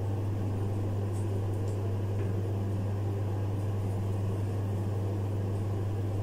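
Steady low hum with a faint even hiss, holding at one level throughout, with no distinct events.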